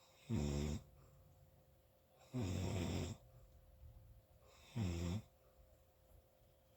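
A person snoring: three short, pitched snores about two seconds apart, the middle one the longest, with quiet breathing between them.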